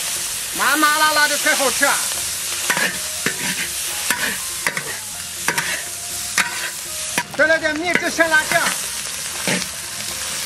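Hot oil sizzling in a large wok as pig intestines with scallion, ginger and garlic are stir-fried, the spatula scraping and clicking against the wok throughout. Two brief pitched sounds stand out, about a second in and again about three quarters of the way through.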